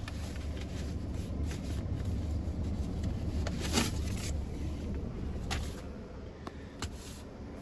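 Peugeot Boxer van's diesel engine idling steadily, heard from inside the cab, with a few short knocks and rustles of things being handled.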